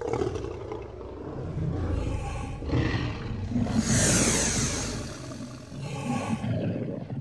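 Dinosaur roar sound effect: several rough, drawn-out roars one after another.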